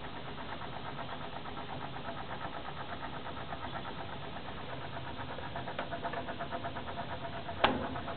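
Hoover Zodiac 490 front-loading washing machine running at the start of its wash cycle: a steady, rapidly pulsing mechanical hum, with one sharp click near the end.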